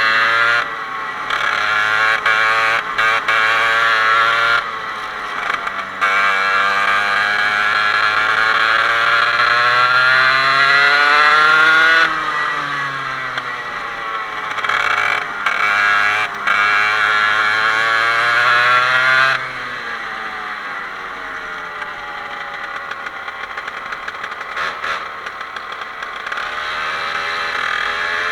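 Parilla 125cc two-stroke kart engine running at full throttle, its pitch climbing steadily and then dropping sharply each time the throttle is lifted, several times over.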